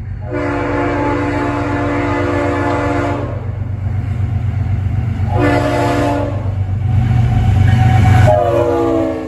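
GE ES44AH diesel-electric locomotive sounding its multi-chime air horn as it approaches and passes at speed: a long blast, a short blast, then a longer one whose pitch drops as the locomotive goes by. The diesel engine rumbles underneath and is loudest as the locomotive passes.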